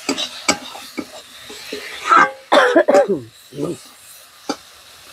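Metal spatula clicking and scraping in a steel wok of frying masala, then a person coughing from about two seconds in. The coughing comes as pungent fumes rise from the frying chilli powder and chilli sauce, and the smell is called very strong.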